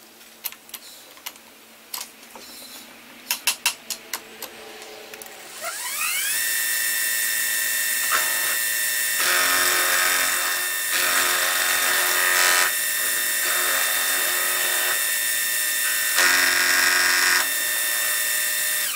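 Milling machine spindle spinning up with a rising whine about six seconds in, after a few clicks and taps, then running at a steady speed while an end mill faces the flat surface of a small slide valve, with louder cutting noise in several stretches. It stops abruptly at the very end.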